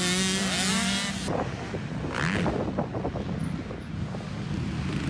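Motocross bikes' engines revving on the track, their pitch rising and falling. About a second in the sound cuts to wind buffeting the microphone, with fainter dirt bike engines under it and one brief rising rev.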